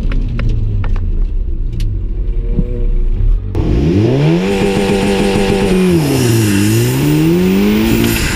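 Turbocharged 2.0-litre four-cylinder engine of a big-turbo Mk7 Volkswagen Golf R under hard driving on an autocross course. For the first few seconds it is a muffled rumble heard inside the cabin. About three and a half seconds in it is heard from outside the car, revving up, holding, dipping briefly, then rising again.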